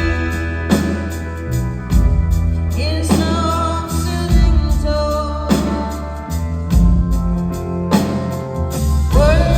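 Live rock band playing a song with singing over it, with a steady bass line and regular drum hits.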